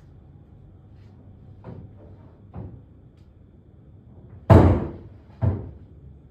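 Two light knocks, then a loud slam about four and a half seconds in and a second, smaller bang about a second later.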